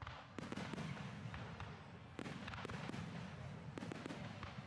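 Aerial firework shells bursting in quick volleys with sharp cracks: one flurry begins about half a second in, and a denser run of bursts starts about two seconds in.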